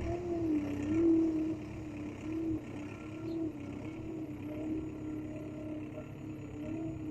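A small motor running steadily, its hum wavering slightly in pitch.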